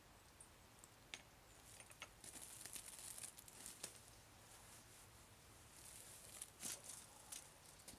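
Near silence: faint rustling and a few light clicks of small things being handled and set down on a small table.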